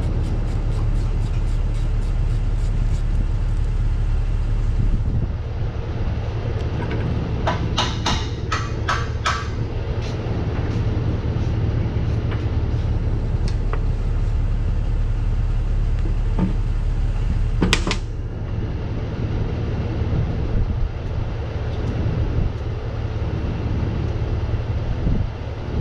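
Steady low engine rumble, like a running vehicle engine. A quick run of about six sharp metallic clicks comes about eight seconds in, and a single sharp clank near the eighteen-second mark.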